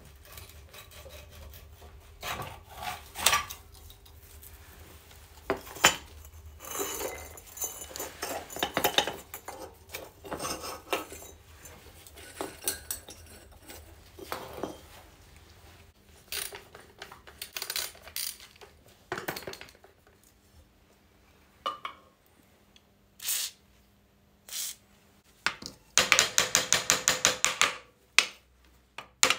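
Steel parts of a Csepel 125 motorcycle's front fork being handled: clinks, knocks and scrapes of tubes, coil springs and tools against metal and the brick floor. A fast, even run of clicks comes near the end.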